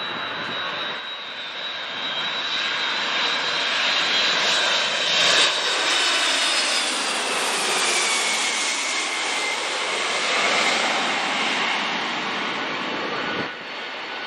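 Boeing 767-300ER twin-engine jet passing low overhead on final approach with its gear down. A steady jet rush builds to its loudest about five seconds in, then eases off. A high engine whine slides down in pitch as the plane goes over.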